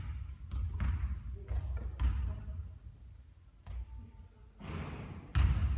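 Basketball bouncing on a court: a run of sharp thuds roughly a second apart, the loudest one near the end.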